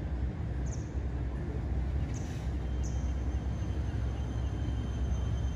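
Steady low rumble of city ambience heard from a rooftop, with three short high chirps at about one, two and three seconds in.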